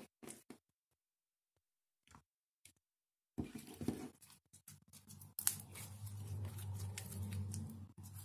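Clear slime coloured pink with lipstick being handled: a few soft wet clicks as it is poked, a pause, then from about three seconds in a dense run of sticky crackling and clicking as the slime is folded, squished and pulled into a stretch.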